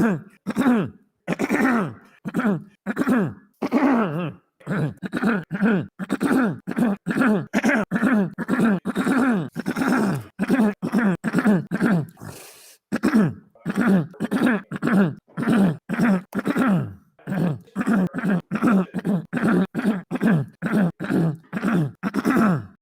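A man's throat clearing and short grunting coughs, many brief clips spliced back to back at about two to three a second. Each one is a short, falling vocal grunt, cut off abruptly before the next.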